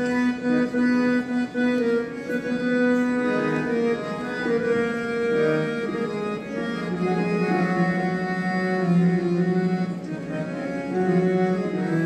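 Harmonium playing a slow melody of held, reedy notes: the instrumental opening of a devotional bhajan.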